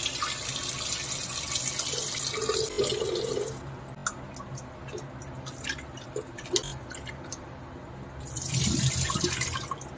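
Kitchen tap running into a pressure cooker holding potatoes, stopping about three and a half seconds in. Scattered drips and small knocks follow as the potatoes are washed, and near the end the rinse water is poured out into a steel sink.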